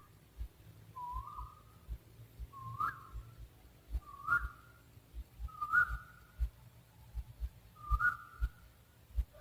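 An owl calling a single short whistled hoot that rises slightly in pitch, repeated five times at roughly one-and-a-half-second intervals. Faint low thumps sound underneath.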